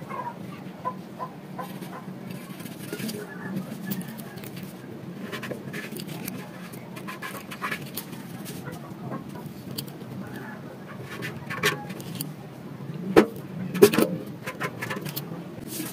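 Empty metal paint can handled and turned on a table: light scrapes and small clicks, with two sharper knocks near the end as the can is turned over. A steady low hum underneath.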